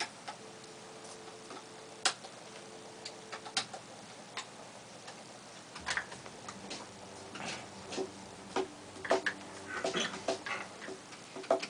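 Scattered sharp clicks and taps over faint hiss. They are sparse at first and come more often from about halfway through.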